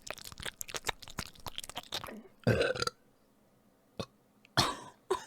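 A woman burping close to the microphone, one louder burp about two and a half seconds in, after a couple of seconds of wet mouth clicks and chewing sounds; a shorter burst of breath-like noise follows near the end.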